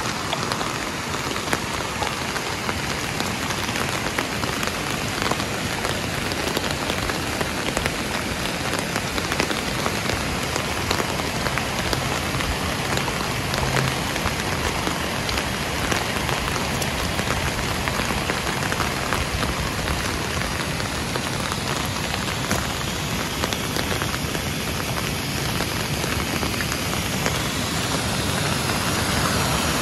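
Steady rain falling, a dense patter of many small drops over a continuous hiss.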